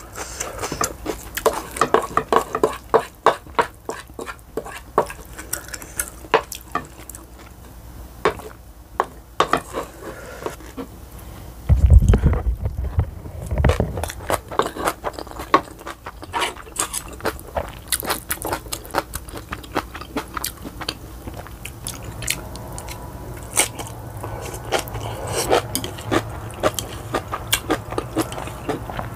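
Close-miked eating: wet chewing and biting of mixed rice, with a spoon scooping and scraping a bowl. About twelve seconds in there is a brief loud low rumble.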